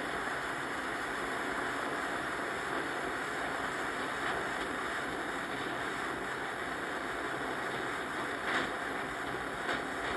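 Soldering torch flame hissing steadily, heating stainless steel parts for silver soldering, with a few light clicks near the end.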